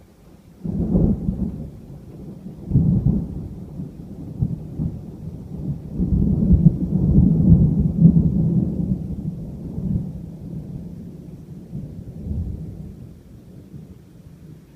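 Thunder rolling. It starts suddenly about a second in, swells again a couple of seconds later and once more in the middle, then slowly dies away near the end.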